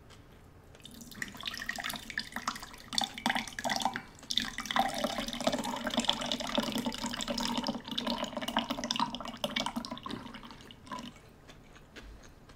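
A red drink poured from a glass pitcher into a glass: a steady pouring splash that starts about a second in, breaks off briefly after about four seconds, then runs on and stops about a second and a half before the end.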